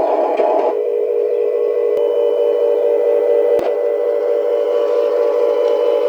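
Huina Scania 770s 1:18-scale RC truck running with a steady droning hum. Less than a second in, the hum narrows to a steadier tone, with two small clicks later on.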